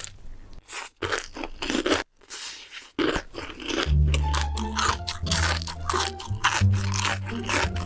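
Close-miked crunching and chewing of crispy fried chicken, a string of sharp crunches with short pauses between bites. Background music with a low bass line comes in about four seconds in.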